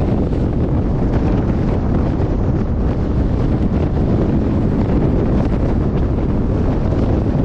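Strong wind buffeting the microphone: a loud, steady rumbling roar of wind noise.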